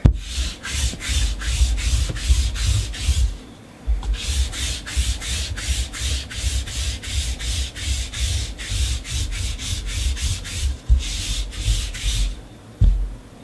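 Rhythmic rubbing or scraping strokes, about three a second, in three runs separated by brief pauses, with soft low thuds under each stroke.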